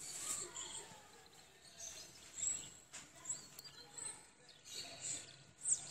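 Faint, short, high bird chirps now and then over a quiet background, with a few soft small handling noises.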